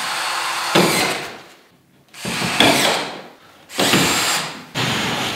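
Cordless drill-driver running in four short bursts of about a second each, driving screws through a plasterboard sheet into the framing.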